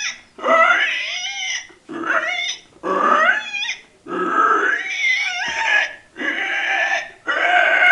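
A man imitating with his voice the squealing of a year-and-a-half-old pig: a run of about seven loud, high, wavering squeals, each around a second long, with short breaks between them.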